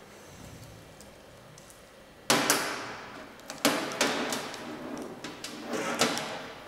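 Handling noise from a tattoo machine cable being uncoiled and shaken by gloved hands: a few sudden loud swishes and knocks, starting about two seconds in and again near the end.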